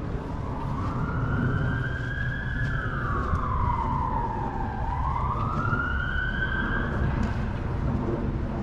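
Emergency-vehicle siren in a slow wail: the pitch climbs, sinks away, and climbs again before fading near the end, over a steady low rumble.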